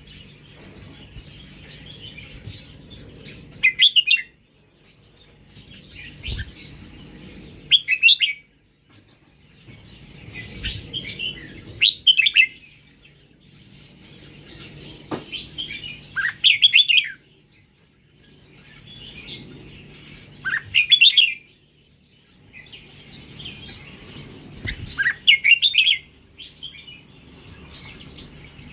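Red-whiskered bulbul of the Indonesian strain singing: a phrase about every four seconds, soft twittering that ends each time in a loud, bright burst.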